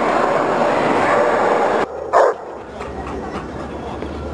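Steady crowd din of a busy dog-show hall, cut off suddenly about two seconds in; then a dog barks once, loud and short, over a quieter background.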